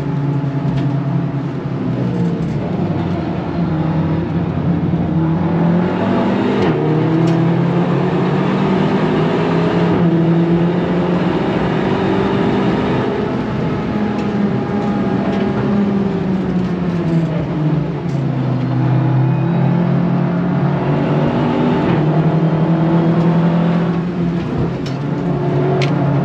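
Seat Leon Cupra 300's turbocharged four-cylinder engine heard from inside the cabin on a fast lap, its pitch climbing under acceleration and dropping back under braking and downshifts several times, over steady road and tyre noise.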